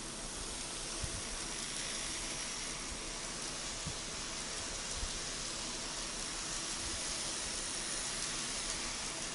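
Tomix N-gauge 583-series model train running along its track: a steady whirring hiss from its motor and wheels, with a few faint clicks.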